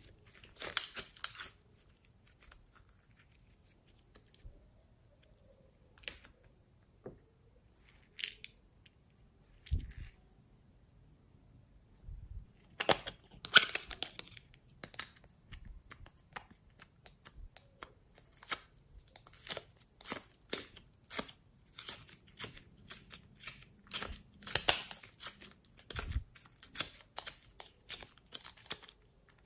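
Hands squishing and kneading glossy slime: sticky pops and crackles, sparse at first with a louder crackling burst around the middle, then a steady run of small clicks through the second half.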